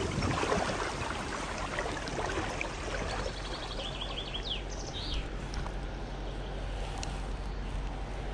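Steady rush of river water flowing over stones, with a few short bird chirps about halfway through.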